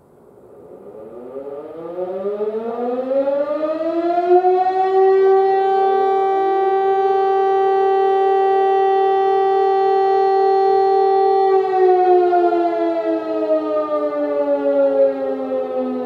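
Outdoor fire-brigade alarm siren winding up from a low pitch into a steady loud wail, holding for about six seconds, then starting to wind down. It is sounding the volunteer fire brigade's call-out alarm.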